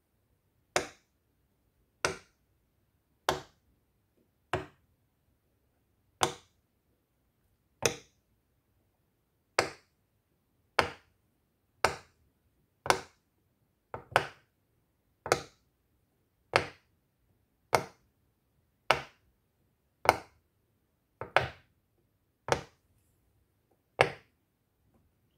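Silicone pop-it fidget toy bubbles pushed in one at a time with the end of a pencil: about twenty sharp pops at a steady pace of roughly one a second, a couple of them doubled.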